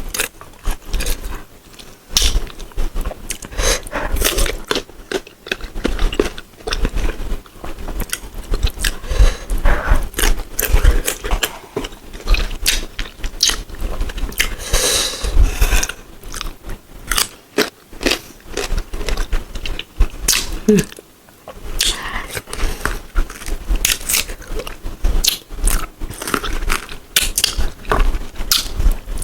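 Close-miked biting and chewing of crisp sour green mango slices, a dense, irregular run of crunches and wet mouth sounds.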